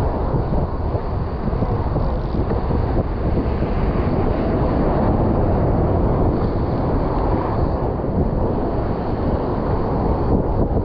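Steady rush of ocean surf breaking against the rocks, with wind buffeting the microphone.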